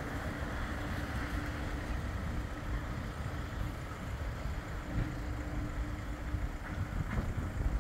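Outdoor traffic noise with wind buffeting the microphone, carrying a faint steady hum that fades in and out.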